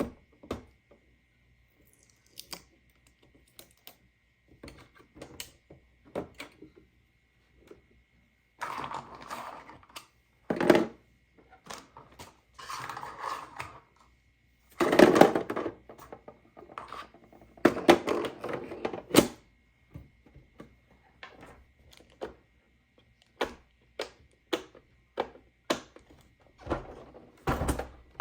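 Toy claw crane machine being handled: many sharp plastic clicks and knocks, with several longer rattling stretches of a second or two, and a faint steady high tone running underneath.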